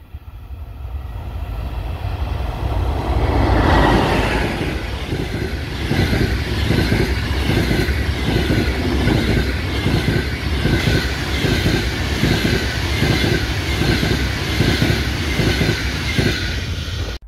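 Passenger train hauled by an EP20 electric locomotive passing at speed: the noise builds over the first few seconds, then the wheels run on in a steady rhythmic clatter as the coaches go by.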